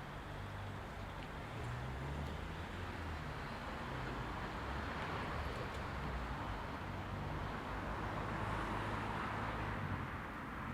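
Road traffic ambience: a steady low rumble and hiss that swells twice as vehicles pass.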